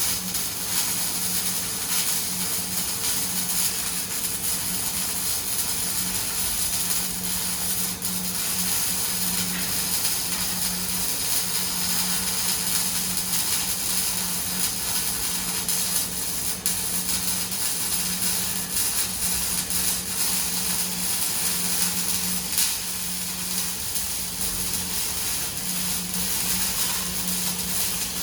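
Semi-automatic wire-fed arc welding: the welding arc gives a steady hissing crackle over a steady low hum.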